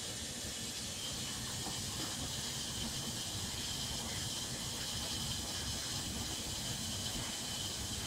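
Front-loading washing machine running, its drum turning the wash with a steady hiss.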